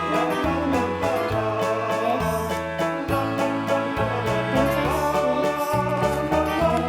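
Background music with a steady bass line and sustained keyboard-like chords.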